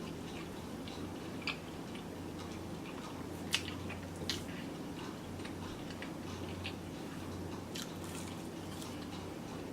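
A person quietly chewing food, with a few soft, scattered mouth clicks over a steady low hum.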